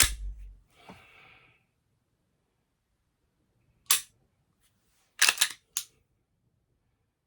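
Dry firing an unloaded Glock 34 Gen 5 pistol: sharp metallic clicks. There is one click with a dull thump at the start, a single click about four seconds in, then a quick group of three clicks around five seconds. These are the trigger breaking on an empty chamber and the slide being worked to reset it.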